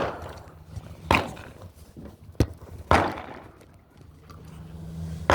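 Gunshots from other shooters along an outdoor firing range: five sharp reports at uneven intervals, most trailing off in an echo.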